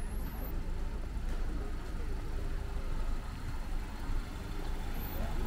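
Outdoor street ambience with a low, steady rumble, like a vehicle engine running.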